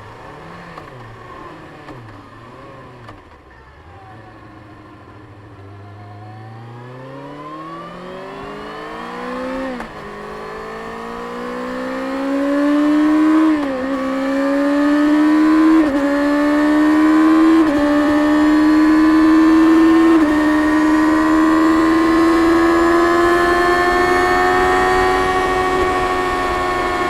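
Stock 2024 Kawasaki Ninja ZX-6R's 636 cc inline-four on its stock exhaust. The rider rolls off the throttle and the engine drops to low revs and wavers there. From about six seconds in it pulls away, rising in pitch through the gears with five upshifts, each a short drop in pitch, then settles into a steady cruise that climbs slowly.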